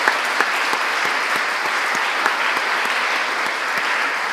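An audience applauding steadily, many hands clapping at once with a few louder single claps standing out.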